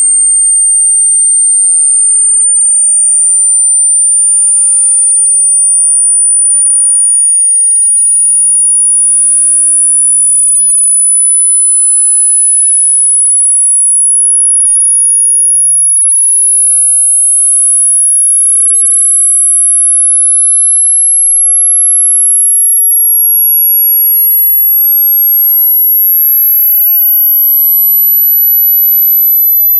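Loud, single pure electronic tone: a speaker-cleaner water-eject sweep, gliding slowly and steadily upward in pitch through a very high whistle.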